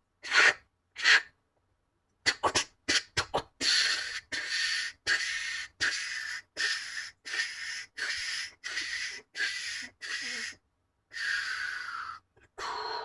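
Rapid breathy puffs, like panting, about two a second for several seconds, after a few quick sniff-like bursts, ending in two longer exhalations.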